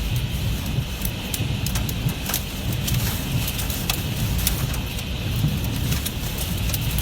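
Storm of heavy rain and hail, with hailstones striking hard surfaces in many scattered sharp clicks over a steady hiss of rain and a low rumble of wind on the microphone.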